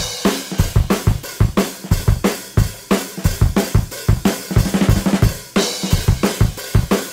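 Drum-heavy background music: a steady driving beat of kick drum, snare and cymbals.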